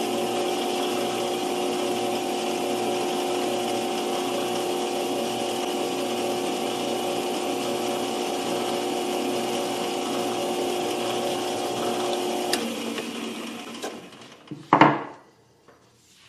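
Metal lathe running steadily with a few steady tones over its noise while a lathe tool chamfers the tip of a bronze workpiece. About twelve and a half seconds in the lathe is switched off and the spindle winds down over a second or so. A single sharp knock follows near the end.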